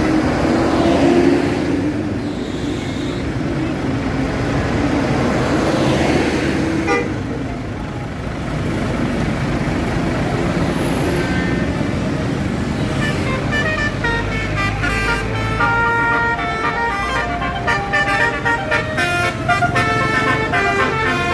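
Tour bus running, its basuri telolet horn playing a quick tune of short notes that step up and down, starting about two-thirds of the way in. Earlier, a horn tone rises and falls twice.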